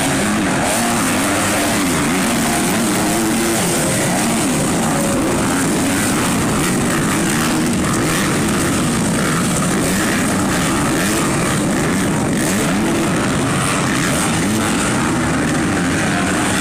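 Several motocross dirt bikes racing, their engines revving up and down in overlapping rises and falls of pitch.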